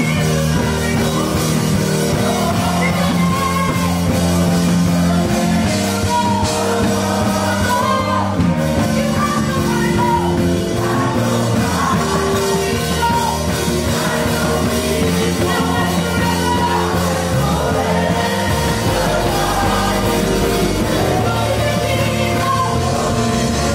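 Live worship music: a woman sings into a microphone over a band with electric guitar and bass guitar.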